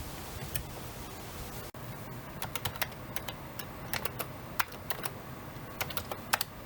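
Typing on a computer keyboard: irregular keystroke clicks, some single and some in quick little runs, over a low steady hum.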